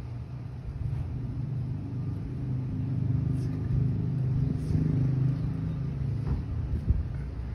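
Engine rumble of a road vehicle on the street, swelling louder through the middle and easing off again, as a car going by. A single sharp knock sounds near the end.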